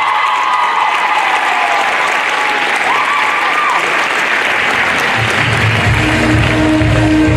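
Audience applauding a finished dance routine. Music with a steady bass comes in about five and a half seconds in.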